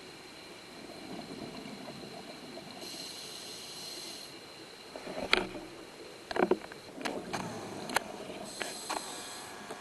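Scuba regulator breathing underwater: a hissing inhale about three seconds in and again near the end, with bubbling exhaust noise and several sharp clicks and knocks in between.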